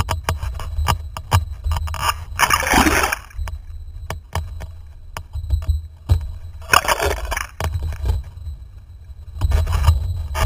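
Wind buffeting the microphone of a rig-mounted action camera on a sailing windsurf board, with water splashing against the board in three noisy bursts, at about two and a half seconds, about seven seconds and near the end. Short clicks and knocks from the rig run throughout.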